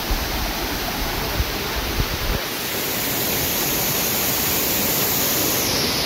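Waterfall rushing: a steady, even noise of falling water that grows a little louder and brighter from about halfway through. There are a low rumble and a couple of dull knocks in the first two seconds or so.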